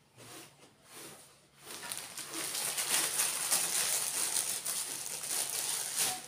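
Thin clear plastic bag crinkling and rustling as it is handled and pulled open, starting about two seconds in and going on for around four seconds.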